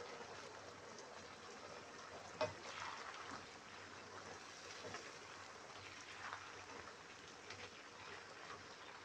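Sauce simmering and bubbling in a wok of gizzards and potatoes, with a spatula stirring and scraping through it. One sharp knock about two and a half seconds in.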